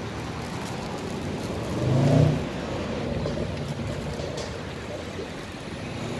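City road traffic with a steady rumble, and a passing vehicle's engine swelling loudly for about half a second around two seconds in.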